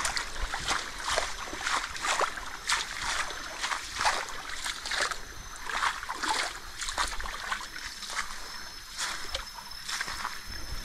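Footsteps wading through a shallow creek, with irregular splashes and sloshes about two a second.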